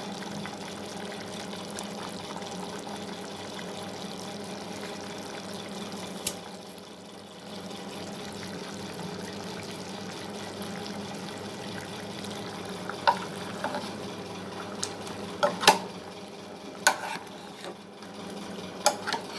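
Squid adobo simmering in a pot with a steady, even hiss. A metal ladle clicks against the pot a few times in the second half.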